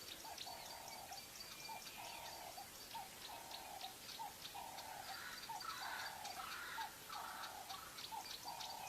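Wild animals calling in the bush. One caller gives a short mid-pitched call about every two-thirds of a second, over quick high chirps and ticks. A second, higher call series joins for a couple of seconds in the middle.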